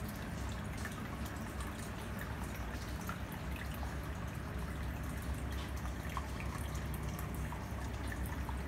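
Aquarium air bubbler running: a steady stream of small bubbles rising and popping at the water surface, heard as many small drips and pops over a low steady hum.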